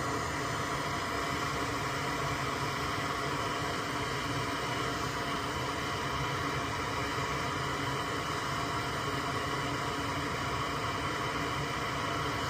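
Soldering fume extractor fan running with a steady whir and hum.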